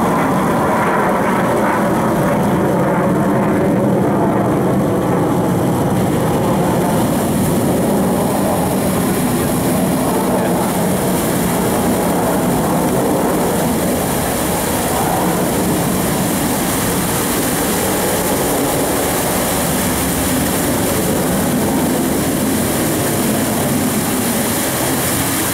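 Jet engine noise from a military fighter jet flying overhead, loud and steady throughout.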